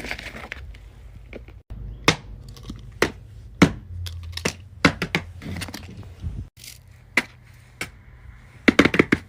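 Irregular sharp clicks and taps of plastic fidget toys being handled and set down, with the sound cutting off abruptly twice.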